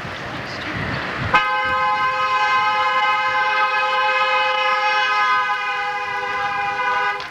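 Car horn held down in one long, steady blast of several notes sounding together, starting sharply about a second and a half in and cutting off abruptly some six seconds later.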